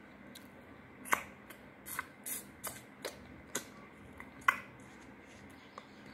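A baby biting and munching on a raw amla (Indian gooseberry), heard as a run of about eight sharp clicks and crunches. They start about a second in, and the loudest comes about four and a half seconds in.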